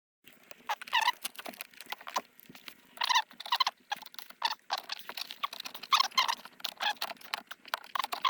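Hand tools working a bolt overhead: irregular fast clicking, like a ratchet and socket on a flex drive, broken by short high squeaks of metal on metal.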